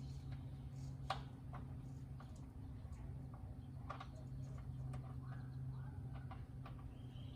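Scattered light clicks and taps of metal parts being handled as a Jeep Wrangler hood-clamp bolt is fitted by hand. The sharpest click comes about a second in, and another near the middle. A steady low hum runs underneath.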